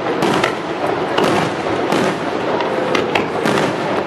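Aerial fireworks display: shells bursting in quick succession, with sharp bangs several times a second over a continuous wash of crackle and noise.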